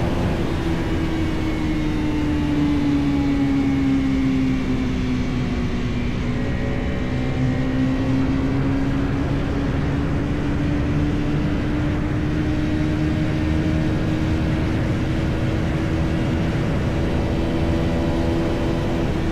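Bajaj Pulsar NS400Z's single-cylinder engine running steadily under way, with wind and road noise. Its pitch sags slightly about five seconds in, then slowly climbs back over the following seconds.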